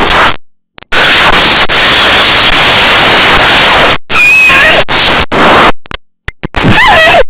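Very loud harsh static noise from a fictional Emergency Alert System alarm, cutting abruptly to silence about half a second in and again around six seconds in. Near the end, distorted tones slide downward.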